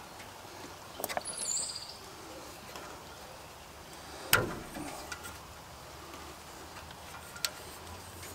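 A few sharp clicks and knocks of hand-handled parts and tools, the loudest about four seconds in, over a quiet outdoor background; a bird chirps briefly about a second in.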